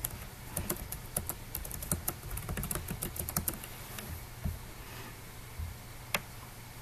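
Typing on a computer keyboard: a quick run of key clicks for about three and a half seconds, then a couple of lone clicks.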